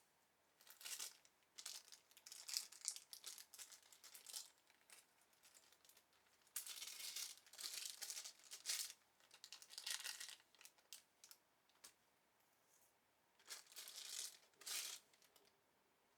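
Packaging of a wireless microphone kit being handled and unwrapped, heard as irregular bursts of high, papery rustling with short pauses between them.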